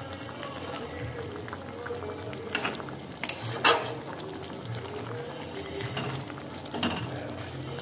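Prawn curry in coconut-milk gravy bubbling at a boil in a pan, with a metal spatula stirring and clinking against the pan a few times, loudest between about two and a half and four seconds in.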